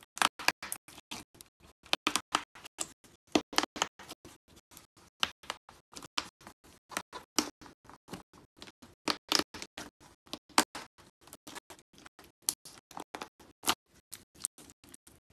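Brittle coated sticks being crushed by hand inside a plastic bag: a run of sharp, irregular cracks and snaps, several a second, mixed with crinkling plastic.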